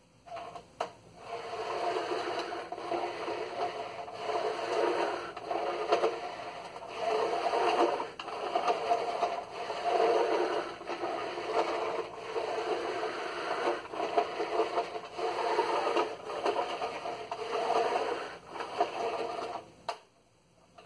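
Carpet sweeper being pushed back and forth over carpet, its brush roll whirring and rattling as it picks up small bits of debris. The sound swells and dips with each stroke and stops abruptly about a second before the end.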